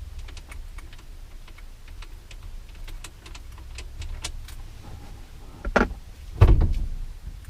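Scattered light clicks and rattles of a truck steering wheel being worked off its steering column, with two heavier knocks near the end.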